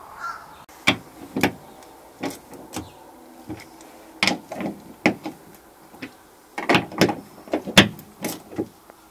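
Irregular metallic clicks and clunks, some with a brief ring, from the lever handle of a newly installed bronze Groco flanged seacock being worked open and shut.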